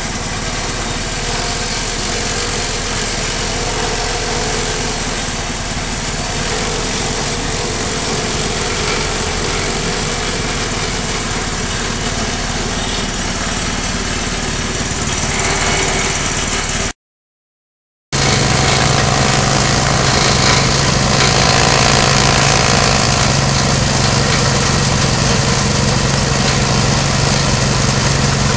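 Motorized grass chopper running steadily as grass stalks are fed into its hopper. The sound drops out completely for about a second roughly two-thirds through, then returns louder with a stronger low hum.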